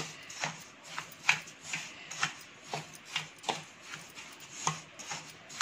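Wooden spatula scraping and stirring through granulated sugar and roasted rava (semolina) with cashews and raisins in a steel plate: a gritty scrape about twice a second.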